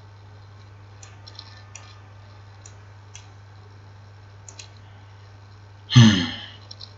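A handful of scattered computer mouse clicks over a steady low electrical hum, then about six seconds in a short, loud wordless vocal sound that falls in pitch.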